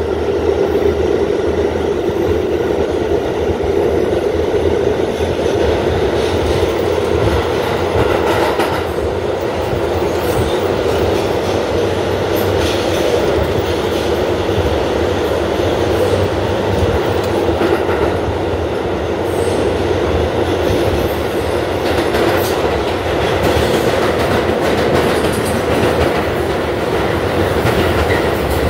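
A New York R211 subway car running at speed through a tunnel, heard from inside the car: a steady, loud rumble of wheels on rail, with scattered clicks as the wheels pass over rail joints.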